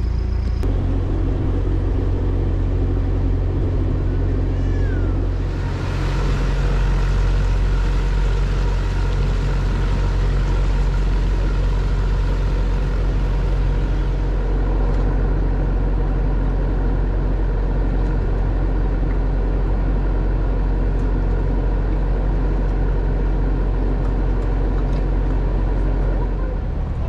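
Narrowboat's inboard diesel engine running steadily under way. It gets a little louder about six seconds in and eases off slightly near the end.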